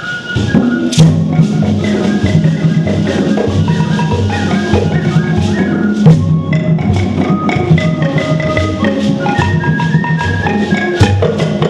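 Traditional Kiganda instrumental music: a wooden log xylophone struck in quick, repeated notes over a steady, pulsing drum beat, with an end-blown flute in the mix.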